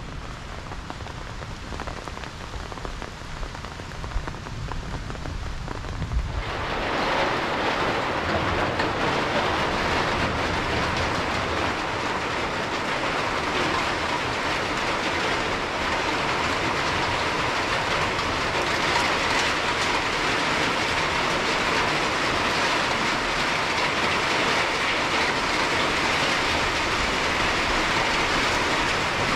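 Rain falling with a low rumble under it. About six seconds in it switches abruptly to a heavy, dense downpour with an even, louder hiss.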